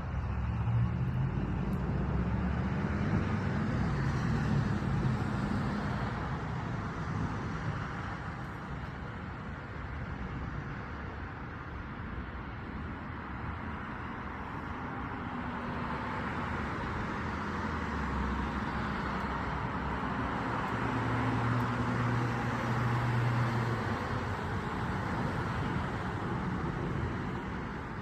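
Road traffic: vehicles going by, the sound swelling and fading, loudest in the first few seconds and again a little past the middle.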